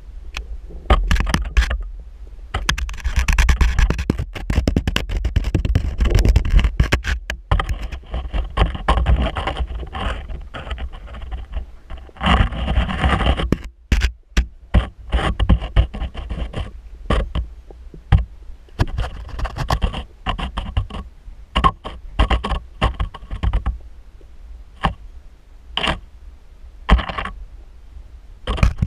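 Underwater handling noise from a GoPro in its waterproof housing: many irregular knocks and scraping rubs as the housing moves against the muddy bank, over a constant low rumble of water.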